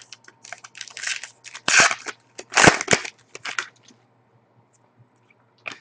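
A stack of 2010-11 Panini Pinnacle hockey cards slid and flicked against one another by hand, a quick run of rustling swishes and snaps that stops about four seconds in.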